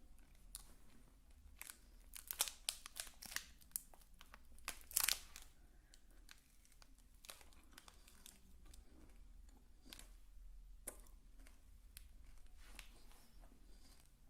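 Close-miked crinkling and crackling of something being handled: a quick run of sharp crackles in the first few seconds, the loudest about five seconds in, then only scattered soft ticks.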